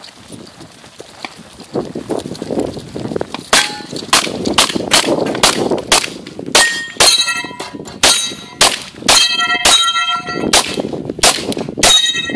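A pistol fired rapidly, about two shots a second, starting about three and a half seconds in. Steel targets ring with a metallic clang after many of the shots.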